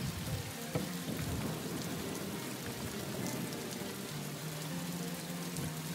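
Steady background noise of a theatre hall during a pause in the show: an even hiss with a faint low hum, and no voices or music.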